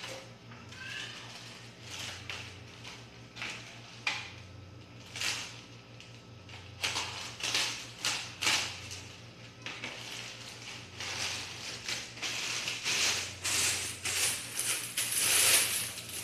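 Clear plastic wrapping crinkling and rustling as an air rifle is pulled out of its bag. Sparse at first, then denser and louder through the second half.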